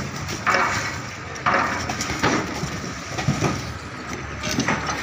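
Large blocks of ice being struck and broken apart with a long pole and handled, giving about five crunching, cracking impacts at uneven intervals.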